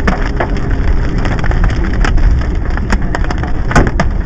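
Hailstones pelting hard surfaces during a severe hail storm: a dense, loud clatter of impacts with many sharp separate hits standing out, over a low rumble.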